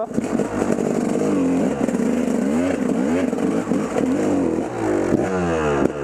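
KTM enduro dirt bike engine revving up and down repeatedly, its pitch rising and falling, with quicker blips of throttle near the end as the bike works through deep mud.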